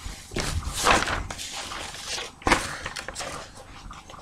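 Sheets of paper rustling as they are picked up and handled, in several short spells.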